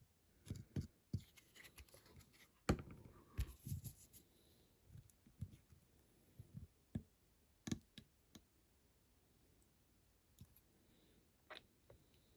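Faint, scattered clicks and light taps of small parts and tools being handled on a workbench, about a dozen, loudest a few seconds in.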